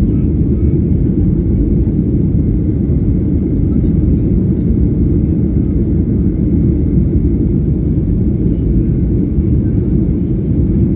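Steady low rumble of a jet airliner's engines and airflow heard from inside the passenger cabin during takeoff.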